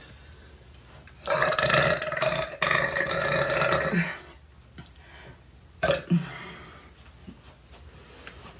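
A woman belching: one long, loud burp of about three seconds starting about a second in, then a short burp about two seconds later.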